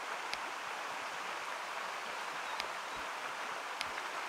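River water running, a steady even rush, with a few faint high ticks.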